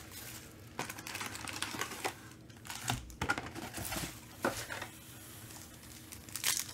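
Trading-card packs and their cardboard box being handled: scattered light clicks and rustles as packs are pulled out and set down. A card pack's wrapper starts crinkling near the end as it is opened.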